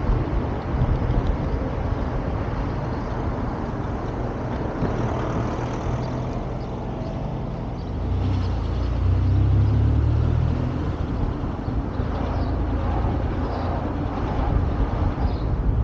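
Road traffic noise, steady and rough, with a louder low rumble that swells from about eight seconds in and fades again some three seconds later, as of a vehicle going past.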